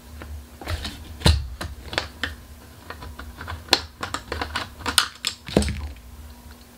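Irregular small clicks and taps of a screwdriver backing out a screw and of the plastic fan shroud of a graphics card cooler being worked loose and lifted off, with low thumps of handling on the table.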